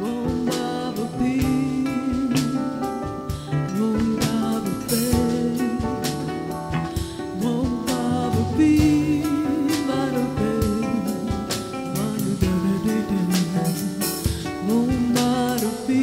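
Live band music: a voice singing a wavering melody over keyboard, acoustic guitar, bass guitar and drum kit, with steady drum strokes.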